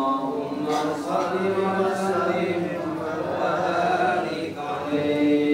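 A man's voice chanting a prayer in long, drawn-out melodic notes.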